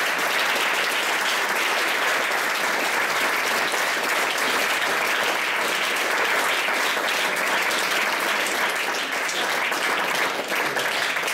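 Audience applauding, steady at first and thinning to a few separate claps near the end.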